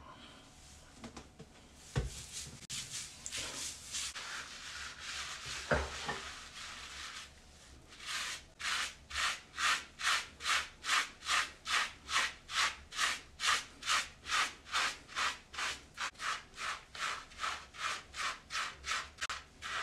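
A wave brush's bristles scrubbing through shampoo-lathered short hair: uneven strokes at first, then fast, even strokes about two and a half a second from about eight seconds in. Two dull knocks come early on.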